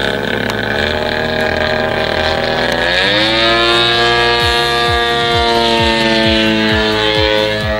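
Twin-cylinder two-stroke DLE 130cc gas engine of a large-scale RC Extra 300 aerobatic plane running in flight. Its pitch rises sharply about three seconds in, then holds high and steady.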